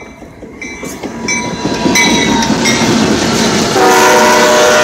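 A train locomotive passing close by at speed, its rumble growing steadily louder, while a crossing bell dings about every two-thirds of a second. About four seconds in, the locomotive's horn starts blowing a steady chord of several notes and holds it.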